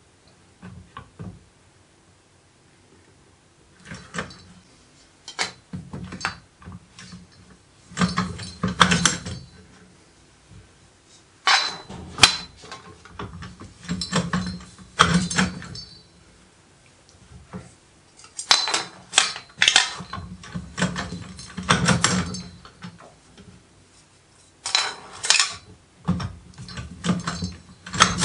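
Homemade bending rolls being worked by hand to roll sheet metal into a tube: spells of metallic clinking and rattling from the rolls and the sheet, several times, with quiet gaps between.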